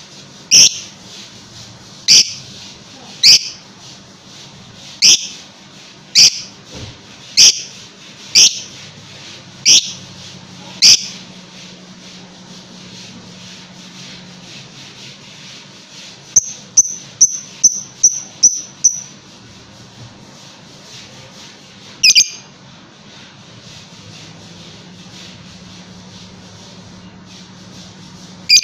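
Fischer's lovebird giving loud, shrill chirps, about one a second for the first ten seconds. After a pause comes a quick run of about eight shorter chirps, then two single chirps later on.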